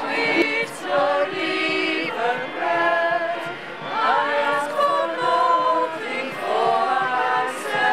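A small group of women singing a song together, voices only, moving through held notes.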